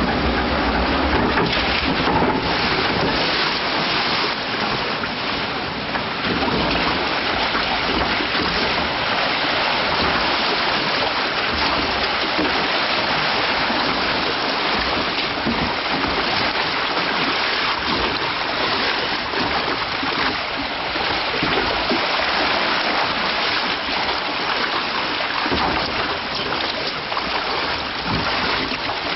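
Flowing water in an Arrow log flume trough as the flume boat floats along the channel: a steady rush of water.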